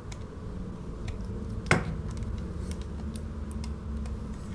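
Small metallic clicks and scrapes of a key being used as a screwdriver on a screw of a brass wall switch plate, loosening it, with one sharper click a little under two seconds in. A steady low hum runs underneath.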